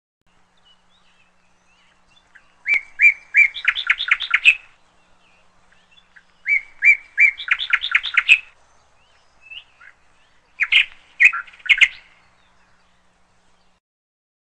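A bird singing three phrases about four seconds apart. Each phrase is a few spaced, sharp notes that run into a fast trill of notes; the last phrase is shorter.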